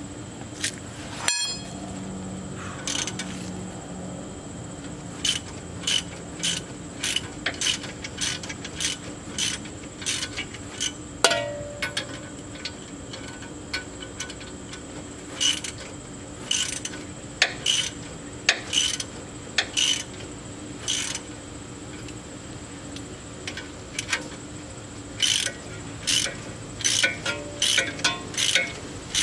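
Ratchet wrench clicking in runs of short strokes, with a pause about halfway, while the threaded rods of a coil spring compressor are backed off to release the spring's pressure.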